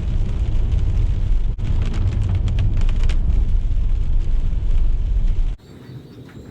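Thunderstorm noise: a loud, deep rumble that cuts off suddenly near the end, leaving a faint hiss.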